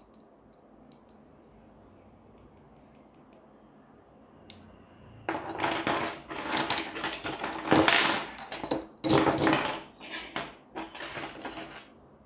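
Chrome-plated metal rings and arms of an orbital kinetic desk toy clinking and rattling as they are handled. Only faint clicks at first; about five seconds in, a busy run of knocks and rattles starts and goes on until near the end.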